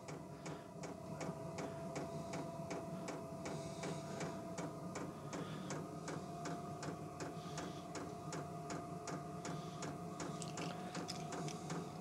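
Vevor diesel heater in its start-up cycle: the fuel dosing pump ticks about four times a second over the steady whine of the blower fan, which creeps slightly up in pitch. The burner is not yet warm and the fan is still pushing cool air.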